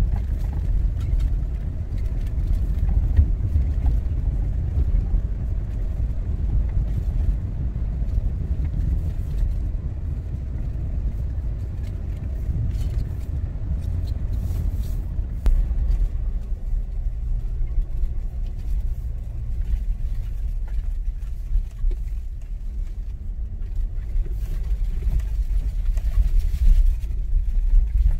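Car cabin noise while climbing a mountain road: a steady low rumble of engine and tyres, with occasional light clicks and knocks.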